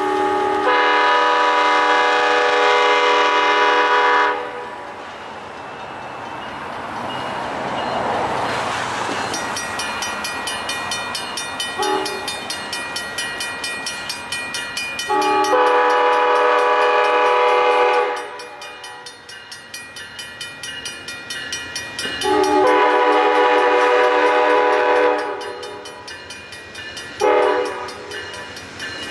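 Amtrak passenger locomotive's multi-note air horn blowing a long blast at the start, then two long blasts and a short one near the end, in the pattern of a grade-crossing warning. Between the blasts the passing train's wheels clatter over the rail joints in a steady rhythm.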